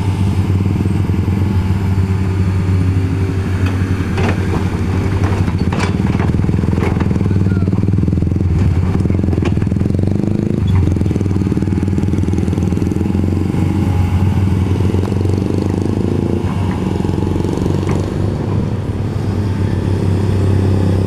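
Heavy machinery's engine running steadily during road demolition, with a few sharp knocks and clanks about four to ten seconds in.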